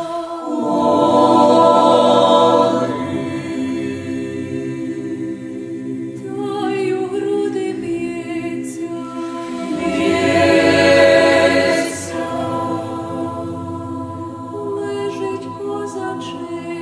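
Youth choir singing a cappella: sustained chords of many voices that swell louder twice, about a second in and again around ten seconds in.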